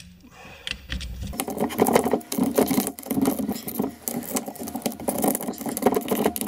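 Socket ratchet clicking rapidly as the cover bolts of a lawn tractor differential housing are loosened and backed out, a dense run of small metallic clicks starting about a second and a half in.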